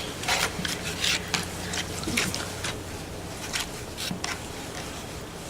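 Borax slime being squished and worked by hand in a bowl, making irregular short wet squelches.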